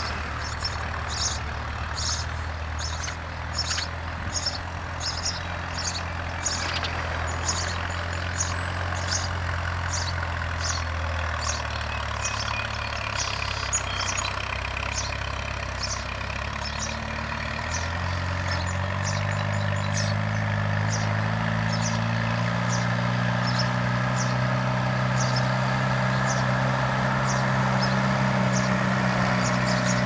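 An engine running steadily with a low hum, which shifts about two-thirds of the way through to a louder, higher drone. Over it a small bird chirps in a steady run of short, high chirps, more than one a second.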